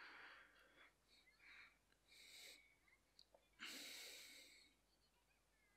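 Near silence, with two faint breaths close to the microphone, one about two seconds in and a longer one about three and a half seconds in.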